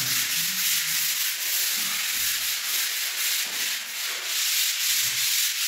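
Sandpaper rubbed by hand over dried wall putty, a steady scratchy hiss from quick back-and-forth strokes.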